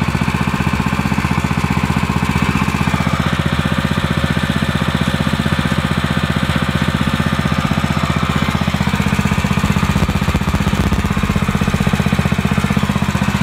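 The YA-OKE 7.0 HP petrol water pump's single-cylinder four-stroke engine running steadily at a constant speed on its first test run. The sound is smooth and even, with no change in pace.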